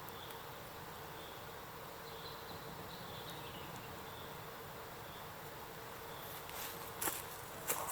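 Forest ambience with a steady, thin insect buzz and faint short chirps. A few sharp clicks come near the end.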